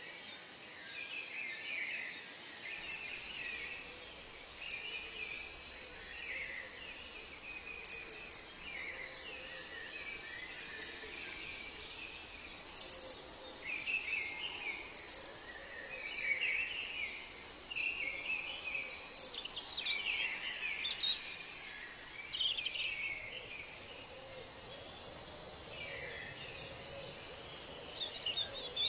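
Tropical forest ambience: many birds chirping and calling over one another, with quick down-slurred calls thickening about two-thirds of the way through, over a faint steady hiss.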